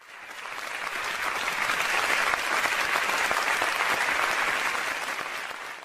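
Audience applauding: a dense, even patter of many hands clapping that swells in over the first second, holds steady, and fades out near the end.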